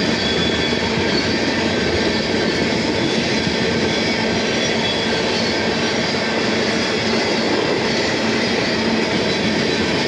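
CSX mixed manifest freight train's cars rolling past, a steady unbroken noise of steel wheels on rail with faint high squeal tones.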